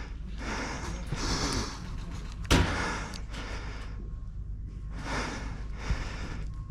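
Breathing and gear rustling from an airsoft player on the move, in several short noisy patches, with one sharp knock about two and a half seconds in, over a steady low rumble on the microphone.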